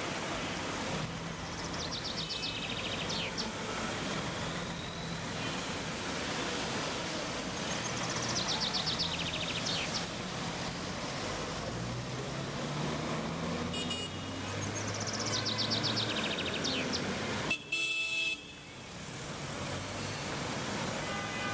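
Filter coffee machine brewing: a steady hiss with a burst of rapid gurgling about every six or seven seconds, three times.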